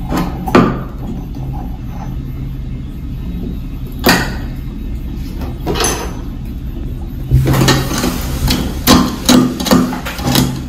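Metal spoon stirring salt into a cup of water, clinking against the cup in a quick run of clicks during the last few seconds. Before that come a few separate knocks as the salt is spooned in.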